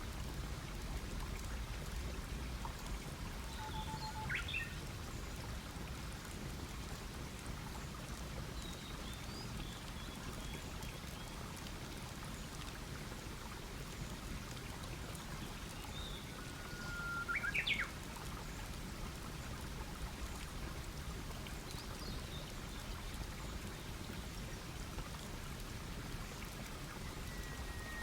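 A wood campfire burning with a steady low rush and faint scattered crackles. A songbird sings three times, about 4, 17 and 27 seconds in; each song is a held whistle followed by a quick flourish of rising and falling notes.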